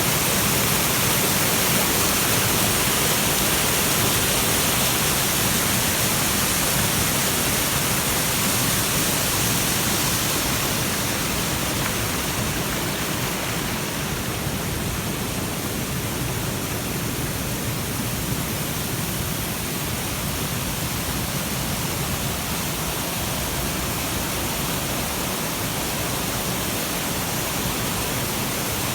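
Waterfall: a steady rush of falling water, easing a little about ten seconds in.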